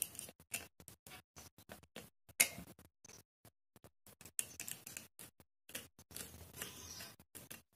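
Faint handling noises of fingers twisting stripped wire onto a small plastic switch's terminals: scattered small clicks and scratches, with a sharper click about two and a half seconds in.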